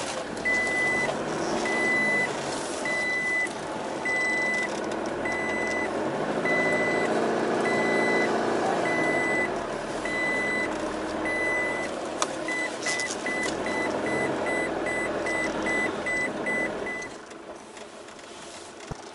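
Off-road vehicle's engine running as it drives over soft sand, heard from inside the cabin. An electronic warning beep repeats about once a second, quickens to about three a second about twelve seconds in, and stops a couple of seconds before the end.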